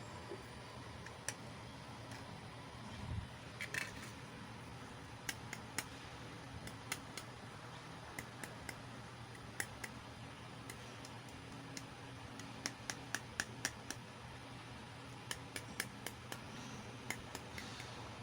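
Small plastic miniature toy pieces clicking and tapping as they are handled and set down: many short, sharp clicks at irregular spacing, some in quick clusters, over a faint steady hum. There is a soft low bump about three seconds in.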